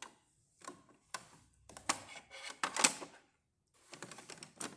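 Irregular clicks and clattering knocks of hard parts being handled on an espresso machine, busiest and loudest near the three-second mark.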